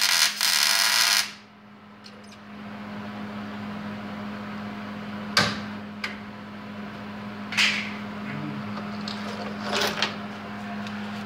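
Welding arc crackling through a short tack weld on the Jeep chassis, cutting off about a second in. A steady hum follows, with a few scattered sharp clicks and knocks of metal.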